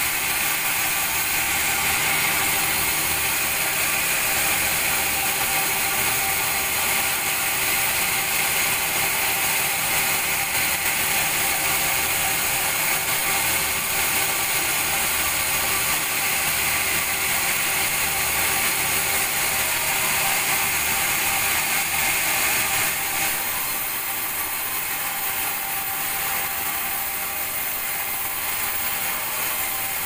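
Vertical band sawmill running steadily, its blade sawing lengthwise through a large log fed past it on the carriage; it gets a little quieter about 23 seconds in.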